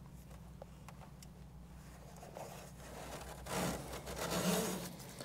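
Quiet scraping and rubbing as a fuel can is handled, louder for about a second and a half starting some three and a half seconds in, over a low steady hum.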